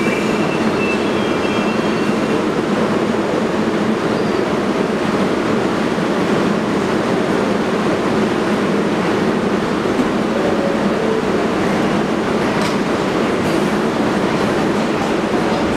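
Steady noise of an NYC subway train in an underground station, an R62A car on the 4 standing at the platform, with no distinct knocks or squeals standing out.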